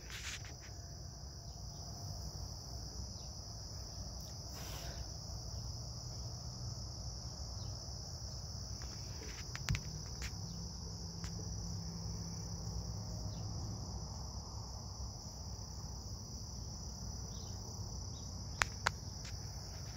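Steady chorus of crickets, a continuous high-pitched trill, with a few soft clicks about ten seconds in and near the end.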